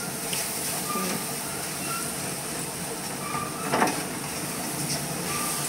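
A spatula scraping and stirring crumbled boondi laddoos in a metal kadhai, over a steady hiss, with one sharper knock of the spatula on the pan about two-thirds of the way through.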